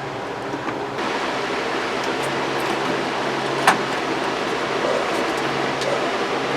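Steady rushing noise with a constant low hum, with one sharp click about halfway through.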